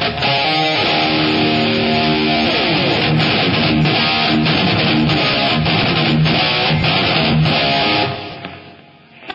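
Heavily distorted electric guitar playing thrash metal riffs, which stop about eight seconds in and ring out into a fade, with a short click near the end.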